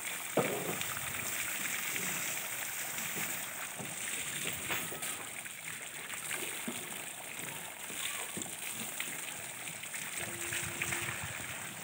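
Water from a garden hose spraying and splashing over a water buffalo's wet back and running off into mud, with a single sharp knock about half a second in.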